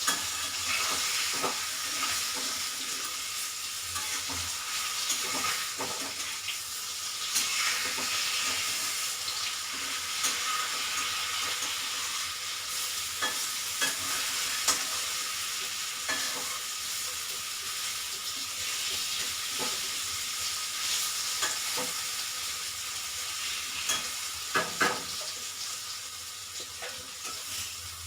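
Hot oil in a kadhai sizzling steadily as raw banana koftas and banana slices deep-fry. A few sharp clicks of a utensil against the pan break in now and then, two of the loudest about three seconds before the end.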